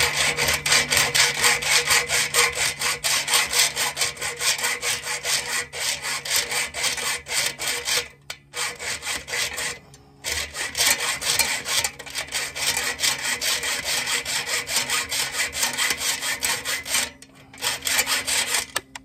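Hacksaw cutting through the head of a machine screw on an aluminium storm shutter, fast, steady back-and-forth strokes with brief breaks about eight and ten seconds in and again near the end, stopping just before the close. The screw head is being cut off because its rivet nut has broken.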